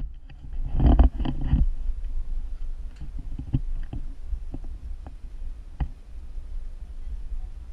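Handling noise on an action camera: a low rumble throughout, a cluster of knocks about a second in, then scattered single clicks.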